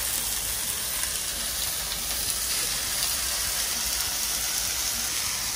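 Thin beef fillets sizzling steadily on a hot, oiled steel griddle, an even hiss of searing meat.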